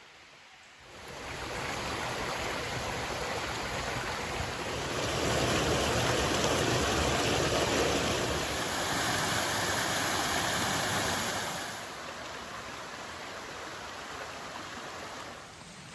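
Steady rush of running water. It comes in about a second in, grows louder about five seconds in, and drops back near twelve seconds.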